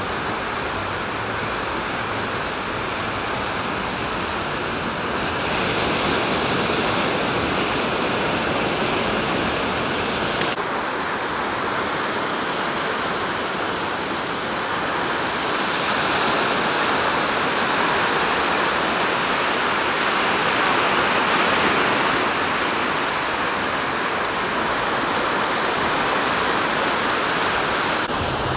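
Sea waves breaking and washing up on a sandy beach: a steady rush of surf that swells louder several times and then eases.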